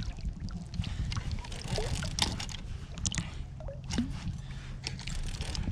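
Water sloshing and lapping against a kayak hull, over a steady low rumble of wind on the microphone, with scattered light knocks.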